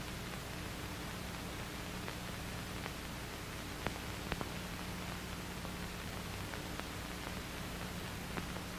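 Steady hiss and faint hum of an old film soundtrack, with a few faint clicks.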